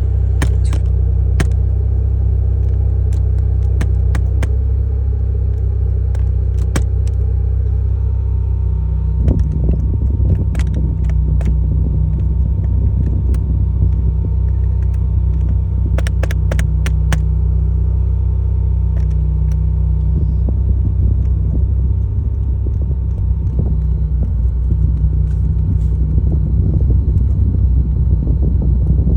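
Mazda RX-8's two-rotor rotary engine idling with a steady low hum, with scattered sharp clicks. About eight seconds in, a faint steady whine joins and the engine note changes slightly.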